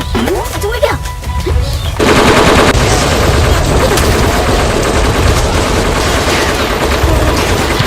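Rapid automatic gunfire, a continuous fusillade of shots starting about two seconds in, over background music.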